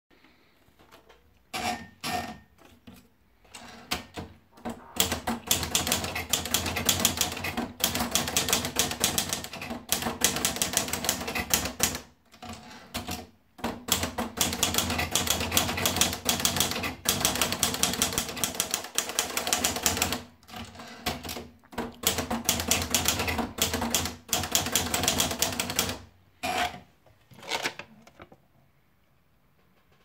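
Olivetti Lettera 25 manual portable typewriter: a few clicks near the start as the paper is wound in, then rapid typing in long runs of keystrokes, broken by a few short pauses between lines.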